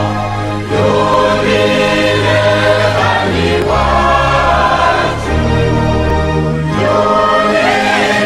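Intro music: a choir singing a church hymn over held bass notes, moving from phrase to phrase every couple of seconds.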